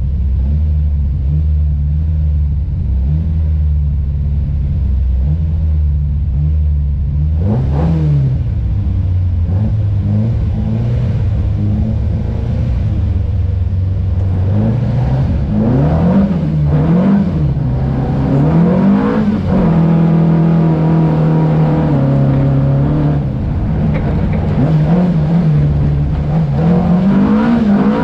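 Volvo 242 rally car's four-cylinder engine heard from inside the cabin, idling while waiting to start. It is blipped once about eight seconds in, blipped several more times around the middle, held at higher revs, then pulls away near the end with rising revs.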